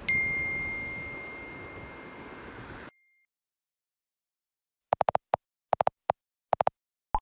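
A single bright ding rings out and fades over about three seconds above a rough, wind-like background noise, then cuts off abruptly. After two seconds of silence come about a dozen short, sharp clicks in quick clusters of three or four.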